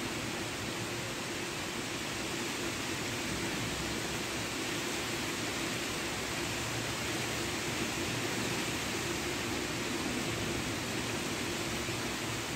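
Steady rain falling in a thunderstorm: an even hiss with no thunder claps.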